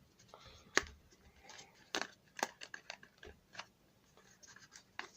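Scattered small clicks and light scratches of a plastic smartphone being handled, with a few sharper clicks about a second in and again around two seconds in.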